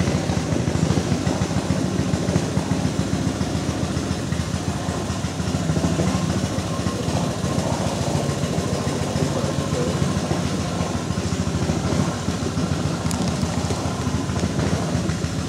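Small boat motor pushing a wooden canoe, running steadily at an even speed.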